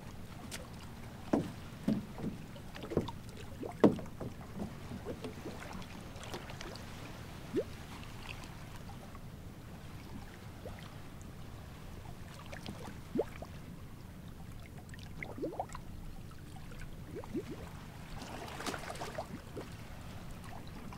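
Water lapping against the hull of a small rowboat, with scattered light knocks and small plinks over a low steady rumble of wind; the sharpest knocks come in the first four seconds.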